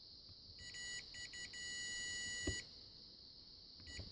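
Ohmmeter continuity beeper sounding in broken, stuttering beeps, then one beep held for about a second, and another short beep near the end. The beeps come and go as the ignition switch's key is worked: the crank circuit makes contact only in certain spots, which the owner puts down to dirty contacts inside the switch.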